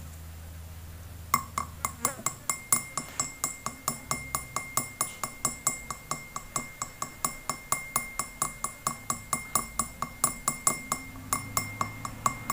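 A bamboo skewer tapping the rim of a glass tumbler, about four light taps a second, each one ringing briefly with a clear glassy ping. The taps start about a second in and stop just before the end.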